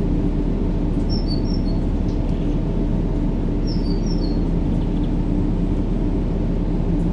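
Steady low, rumbling white noise with a faint hum in it, played as a baby-sleep sound. Two short clusters of high bird chirps come through, about a second in and again about four seconds in.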